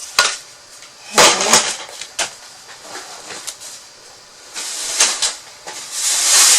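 Thin wooden storage pieces being handled and set down on a table: several sharp clacks and knocks, with a stretch of rustling near the end.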